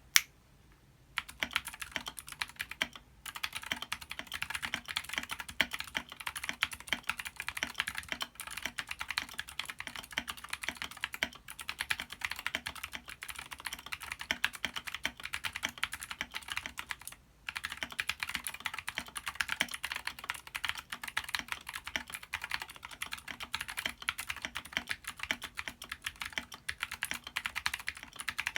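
Fast, continuous typing on an Anne Pro 2 mechanical keyboard with lubed and filmed Gateron Blue clicky switches, a dense stream of sharp key clicks. The typing starts about a second in and pauses briefly twice, near three seconds and near seventeen seconds.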